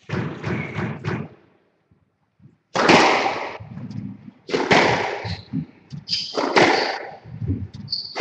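Squash rally: the ball cracks off the rackets and the court walls, each shot echoing around the court. After a short lull the shots come about every one and a half seconds, with brief high squeaks in between.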